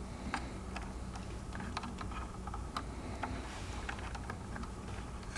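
Scattered light clicks and ticks of wires and plastic connectors being handled and fed through a hoverboard's metal pivot tube, over a faint steady low hum.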